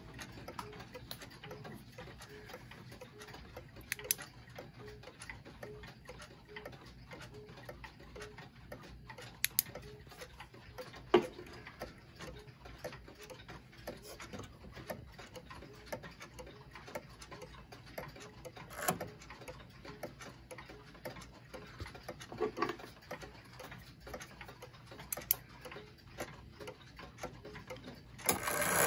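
Antique Japanese regulator wall clock's brass movement ticking quietly and evenly as the pendulum swings. A few sharper knocks sound now and then.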